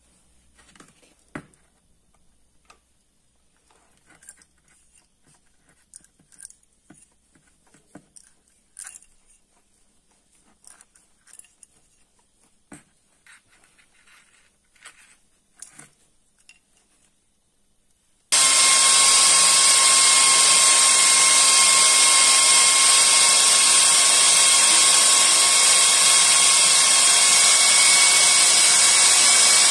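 Scattered light clicks and knocks of metal pipe fittings being handled, then, about two-thirds of the way through, an electric drill comes in abruptly and runs steadily at full speed with a constant whine, a thin metal rod turning in its chuck.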